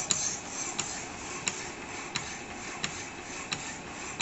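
Power hacksaw cutting metal bar stock: the blade frame runs back and forth with a steady rasp and a sharp click at each stroke, about three clicks every two seconds.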